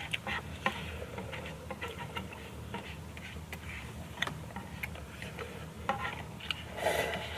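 Eating instant fried noodles: small, irregular clicks and taps of utensils against the bowl, with a brief louder rush of noise near the end.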